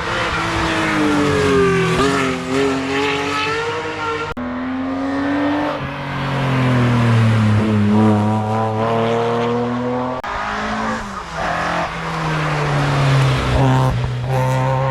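Race car engines at a hill climb, revving hard, the pitch falling and rising again through gear changes as cars pass. The sound cuts abruptly to a new car about four seconds in and again about ten seconds in.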